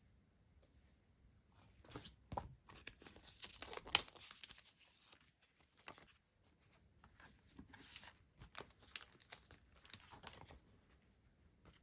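Packaging being torn open and crinkled by hand: two spells of crackly rustling, with a sharp snap about four seconds in.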